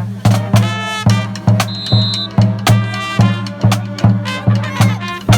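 Background music with a steady, driving drum beat of about two and a half hits a second over a bass line, with melodic notes on top.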